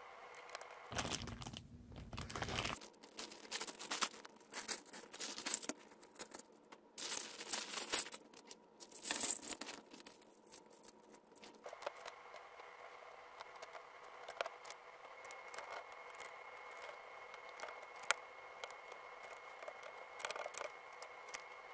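Crinkling and rustling of plastic, with clatter and clicks of LEGO pieces being handled and fitted together. It is loudest in bursts in the first half. After that only sparse clicks remain over a faint steady hum.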